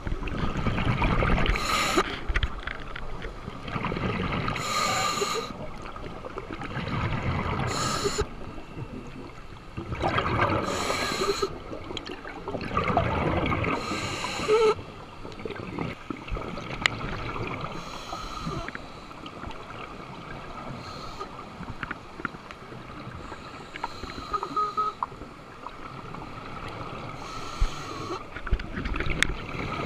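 Scuba diver breathing through a regulator, recorded underwater: a bubbling exhale about every three seconds, with gurgling water noise between.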